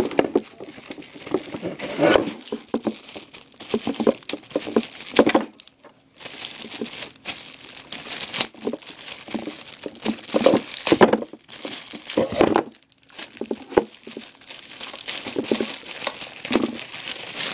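Plastic packaging bag crinkling and rustling in irregular bursts as it is pulled and worked at, with brief pauses; the bag is proving hard to open.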